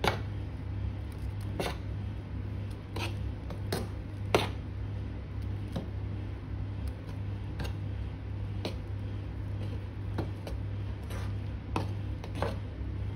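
A spoon stirring thick fermented dosa batter in a steel vessel, with irregular clinks and knocks against the pot, the loudest about four seconds in. A steady low hum runs underneath.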